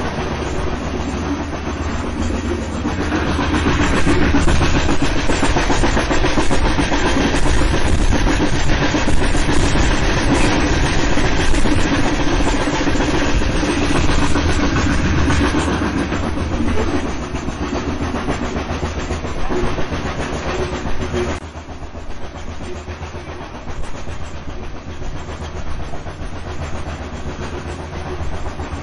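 Steam train running, a continuous dense rumble. It swells a few seconds in and drops down abruptly about three-quarters of the way through.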